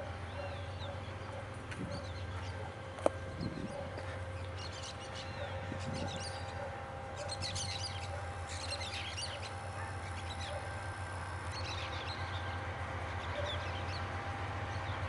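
Birds chirping in scattered bursts over the steady low rumble of an approaching diesel-electric freight locomotive, which grows slightly louder near the end. A single sharp click about three seconds in.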